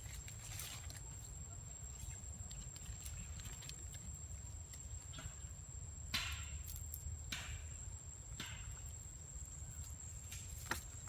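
Forest ambience: a steady high-pitched insect drone over a low rumble, with a handful of short rustles, the clearest about six seconds in and again about seven and eight seconds in.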